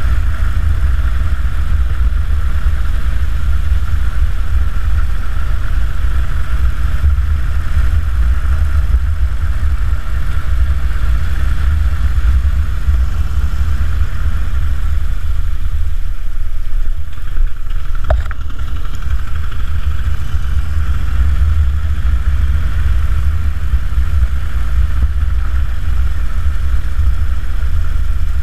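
2009 Harley-Davidson Dyna Super Glide's air-cooled Twin Cam 96 V-twin running under way, a deep, steady rumble. The rumble dips briefly a little past halfway, with one short click just after.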